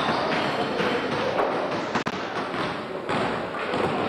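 Basketball game in a sports hall: thuds of a ball bouncing on the wooden floor over the busy hall noise. The sound cuts out for an instant about two seconds in.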